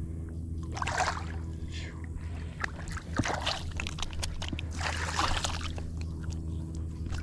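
Water sloshing and splashing against a small boat, in three swishing bursts about two seconds apart, over a steady low hum.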